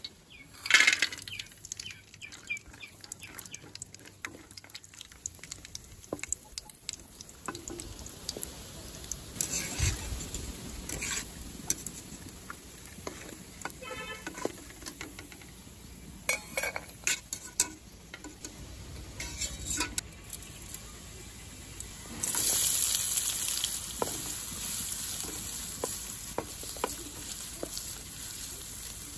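Oil sizzling in a steel kadai, with knocks and scrapes of utensils against the pan. About 22 seconds in, a sudden loud burst of sizzling comes as sliced onions hit the hot oil. The onions are then stirred with a wooden spatula while the sizzle settles.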